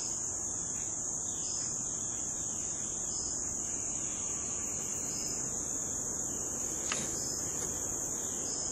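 Crickets chirring in a steady, unbroken high-pitched drone, with a single sharp click about seven seconds in.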